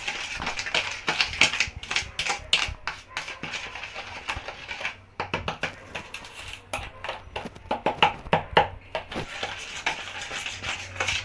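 Metal spoon beating egg into creamed butter for cake batter in a plastic bowl: a quick, uneven run of clicks and scrapes against the bowl, with a brief pause about five seconds in.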